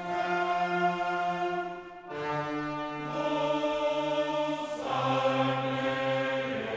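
Background music of slow, held chords that change about two seconds in and again near the five-second mark.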